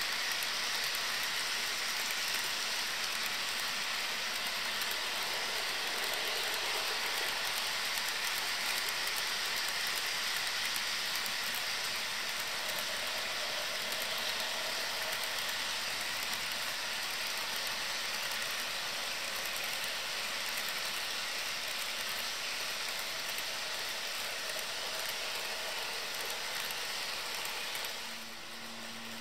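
Wheels of HO scale model freight cars rolling on the track, a steady rushing clatter like light rain. Near the end it drops away and a steady low hum takes over.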